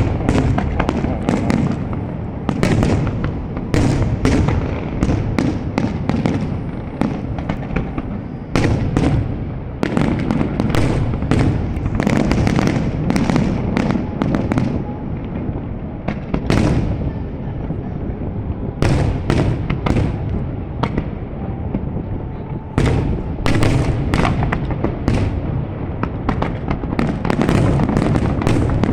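Aerial fireworks going off one after another: a dense run of sharp bangs and crackles over a continuous low booming rumble.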